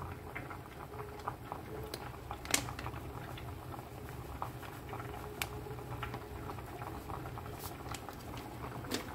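Pot simmering on the stove: a low steady hum with scattered light ticks and pops.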